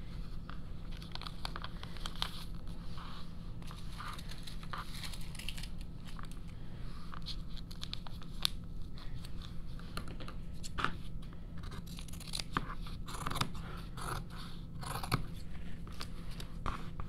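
Rustling and scraping of a paper pattern piece and fabric folded into four layers as they are smoothed and pinned together. Near the end, scissors start cutting through the fabric layers, bringing denser snips and rustles.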